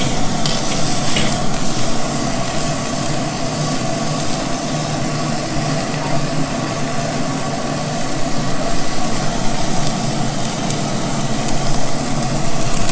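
Tri-tip roast searing on a grate directly over hot charcoal in a Weber kettle grill, sizzling with a steady hiss. A steady low hum runs underneath.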